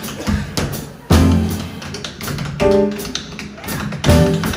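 Tap dancing: quick, uneven clicks of tap shoes on the stage floor, backed by a jazz band's drums and upright bass.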